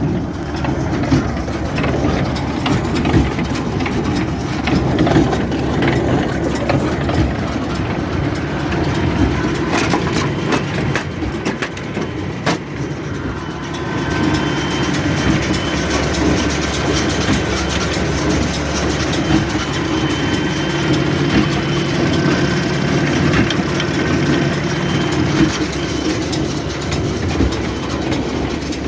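John Deere tractor idling with a Krone 1290 large square baler running behind it: a steady, even drone of engine and baler machinery with no change in speed.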